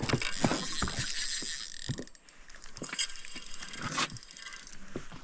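Fishing reel ratcheting and whirring in uneven clicks while a hooked lake trout is played and reeled in.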